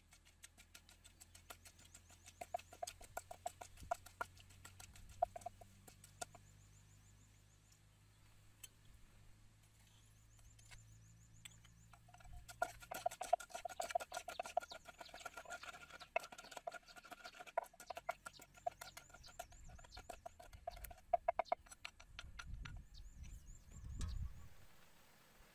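Wooden pestle knocking into a wooden mortar, pounding a chili and garlic paste in quick, irregular strokes.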